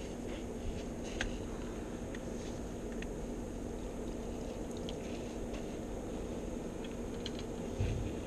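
Steady low outdoor background noise with a few faint light clicks, and one dull thump near the end as a landing-net pole is picked up.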